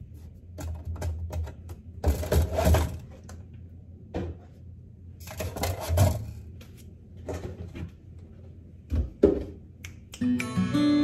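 Kitchen handling noises: knocks, clicks and rustles as plastic bottles and a milk jug are taken from the fridge door and set on the counter, over a low steady hum. Guitar music comes in near the end.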